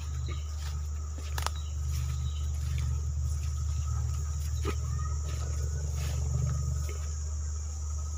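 A steady low hum under a high, steady chorus of crickets, with a few sharp crackles, once about a second and a half in and again near the middle.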